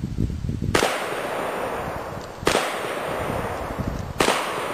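Shotgun fired three times, about a second and three-quarters apart. Each shot is a sharp crack with a long fading tail.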